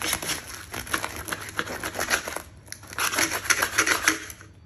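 A bread knife sawing through the crisp crust of a homemade loaf, the crust crackling with each stroke. It comes in two spells, with a short pause about two and a half seconds in, and dies away near the end.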